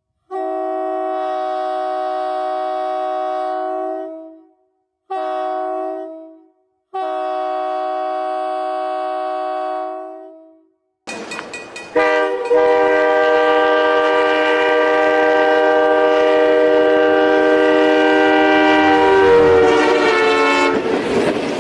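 Train horn sounding a chord in three blasts, long, short and long. After a few clicks, a louder horn with more notes is held for about nine seconds, its pitch sagging near the end.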